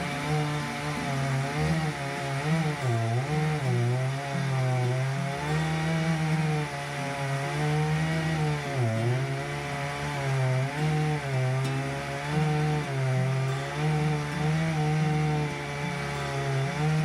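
Chainsaw cutting firewood, running steadily. Its pitch wavers and dips sharply a few times as the chain bogs down in the wood.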